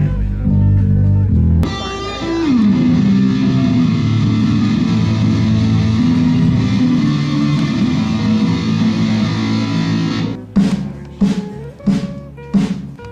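Electric guitar and bass playing sustained, held chords, with a sliding note falling in pitch about two seconds in. From about ten and a half seconds in, a drum is struck steadily, roughly three hits every two seconds.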